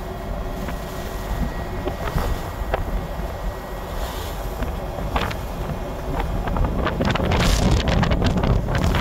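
Wind buffeting the microphone over a steady engine drone from a boat on the water. The buffeting grows harder and louder in the last two seconds or so.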